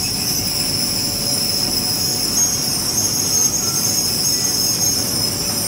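Laser cutting machine running over fabric: a steady high-pitched whine over an even low rush.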